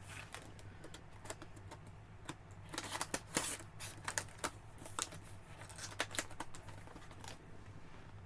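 Light clicks, taps and rustles of a plastic model-kit figure being handled and set down, busiest about three seconds in, over a faint steady hum.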